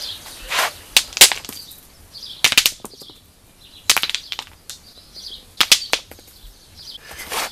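Thrown stones landing and knocking against other stones: sharp clacks in short clusters of a few hits, about six clusters spaced one to two seconds apart.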